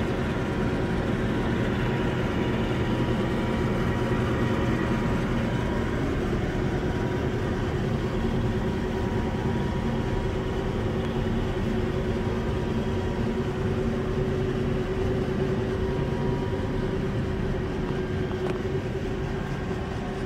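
Steady machinery drone with a faint steady hum in it, holding at one level throughout.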